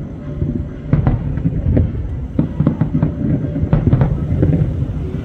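Aerial firework shells bursting in quick succession: an irregular string of booms, about two a second, over a continuous low rumble from the barrage.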